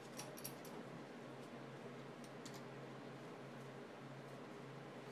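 Faint, scattered clicks of small metal parts being handled, a bolt and a fitting, over a steady low hum.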